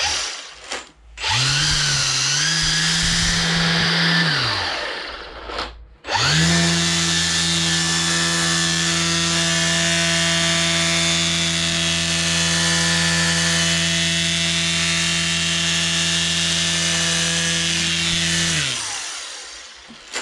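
String trimmer (weed whacker) motor running at full speed in two runs: a short one of about three seconds with a wavering pitch, then after a brief pause a steady run of about twelve seconds. Each run ends by winding down.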